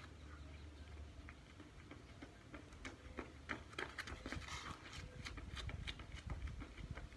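Running footsteps of sneakers slapping on concrete, faint at first, growing louder as the runner comes close, with quick scuffing steps as he turns around near the middle, then fading as he runs off again.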